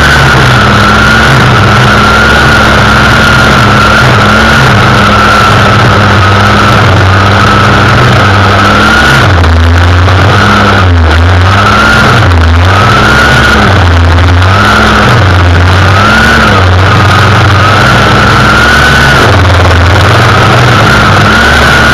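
Two-stroke string trimmer running at high speed while cutting grass and weeds, its engine pitch dipping and rising again several times in the second half as the throttle is eased off and reopened.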